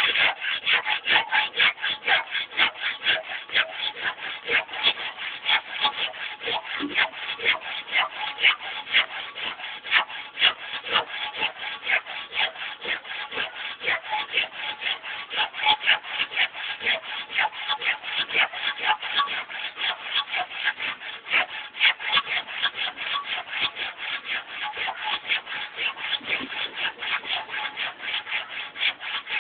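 Hand saw cutting through wood in quick, even back-and-forth strokes, about three a second, kept up without a break.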